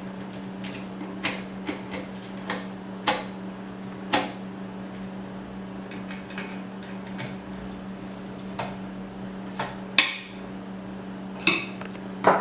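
Screwdriver tightening an M5 screw into a T-slot nut on an aluminum extrusion frame: irregular metallic clicks and knocks as the tool and parts bump against the metal, the loudest about ten seconds in.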